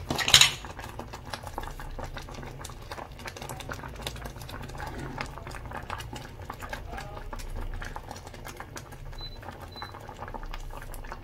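Thick peanut-butter sauce boiling in a metal pot, with a steady low bubbling and many small pops and crackles. A sharp clank about a third of a second in.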